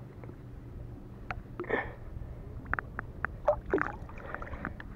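Light splashing and sloshing water as a bass is held in the water by hand and released, with scattered small ticks and two brief splashes, over a low steady rumble.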